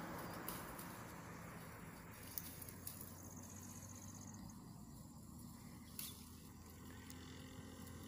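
Faint snaps and rustling as leaves are plucked by hand from a basa (Malabar nut) shrub, with a few sharp clicks, the loudest about six seconds in. A short high trill, like an insect, sounds about three seconds in, over a soft outdoor hiss.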